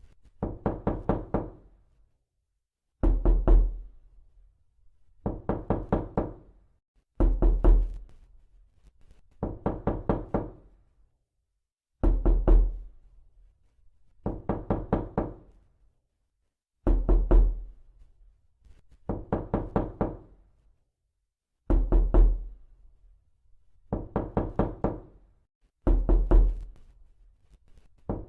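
Repeated knocking in quick groups of three to five knocks, a group about every two seconds, alternating a heavier group with a deep thump and a lighter one.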